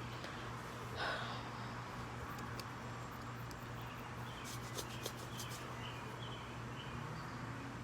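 Quiet room tone with a steady low hum, a soft breath about a second in, and a few faint light clicks.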